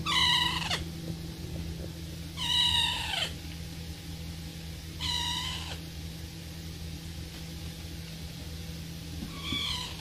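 Rose-ringed parakeet calling: four drawn-out calls, each falling in pitch, spaced a couple of seconds apart, the last one weaker. A steady low hum runs underneath.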